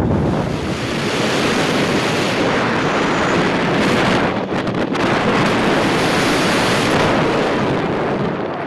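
Wind rushing over the microphone on a moving motorbike, a loud steady roar of noise that dips briefly about halfway through.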